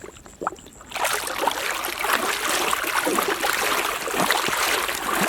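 Water running and splashing steadily over a muddy toy vehicle as it is washed, starting about a second in after a single faint click.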